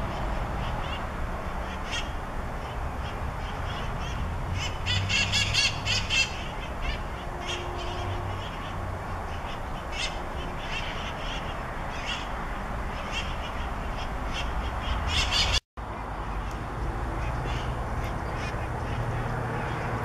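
Wild feral conures (parakeets) giving harsh, screechy calls, in scattered outbursts with the densest cluster about five to six seconds in and another just before the sound briefly cuts out, over a steady low background rumble.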